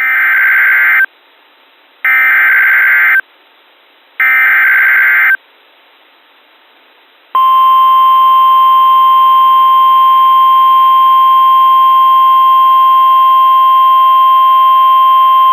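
Emergency Alert System activation on NOAA Weather Radio: three screechy bursts of SAME digital header data, each about a second long and about a second apart, then, about seven seconds in, the steady single-pitch 1050 Hz warning alarm tone. Together they herald a severe thunderstorm warning.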